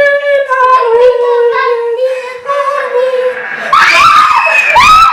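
A high-pitched voice holds one long, slightly falling wailing scream, then gives two short rising cries near the end.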